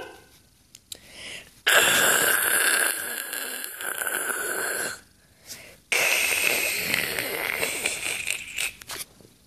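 Television static sound effect: hissing white noise that comes in about a second and a half in and runs for about three seconds, breaks off briefly, then returns near six seconds and fades out toward the end.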